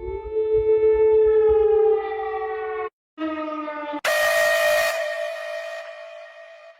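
Emergency-alert alarm tones. A harsh, siren-like tone holds for about three seconds and cuts off briefly. It returns lower for under a second, then at about four seconds switches to a hissier, shriller tone that slowly fades.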